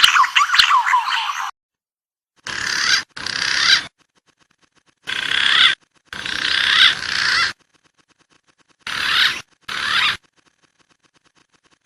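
Whistled wild pigeon calls from a looped lure recording: a dense run of rising and falling whistles for the first second and a half, then six short snippets of whistling with background hiss, each cut in and out abruptly, with silent gaps between.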